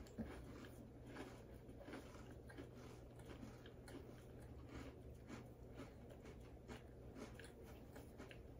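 Faint chewing of Oreo cookies: soft, irregular crunches and mouth clicks from two people eating.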